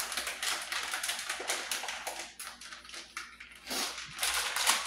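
Plastic rice-mix packet crinkling in the hands with dense rapid crackles as it is worked at and torn open.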